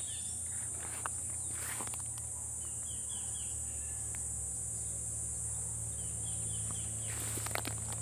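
Insects droning in a steady, high-pitched buzz. Twice, about three and six seconds in, a bird gives a quick run of three or four short falling chirps, and there are a couple of rustling footsteps through undergrowth.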